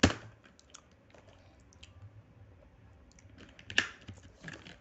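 Computer keyboard typing: a sharp keystroke at the start, a couple of seconds of only scattered faint clicks, then a short run of keystrokes near the end.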